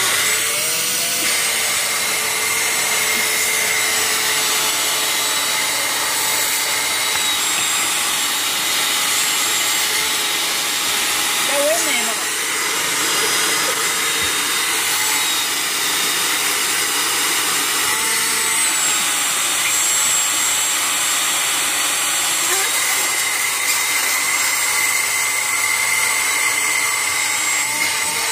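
Small one-gallon, one-horsepower micro shop vac with a bypass motor, running steadily with a high, even whine.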